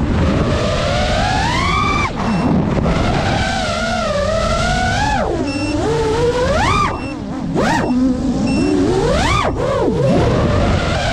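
FPV quadcopter's brushless motors and propellers whining, the pitch swooping sharply up and down as the throttle is punched and cut through dives and turns. It is briefly quieter about seven seconds in.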